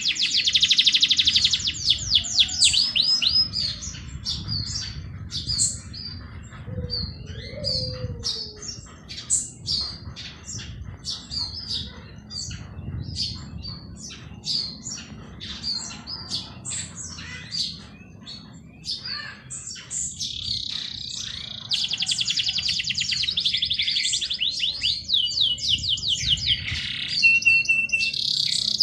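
Several songbirds singing and chirping. Fast, rapid trills open the stretch and return from about two-thirds of the way through, with scattered short chirps and whistles between them. A steady low background rumble runs beneath.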